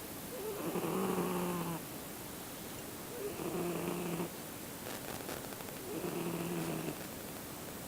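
Male Siamese cat snoring in its sleep: three snores, each about a second long with a steady low pitch, coming every two and a half seconds or so.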